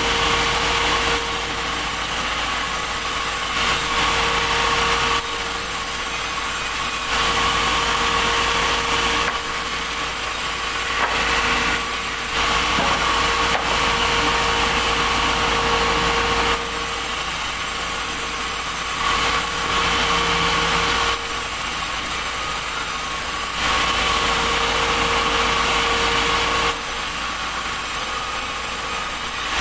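Sawmill running: the saw and its engine make a steady mechanical drone with a constant hum. The noise swells and eases in stretches of a few seconds, as during cutting passes through a log.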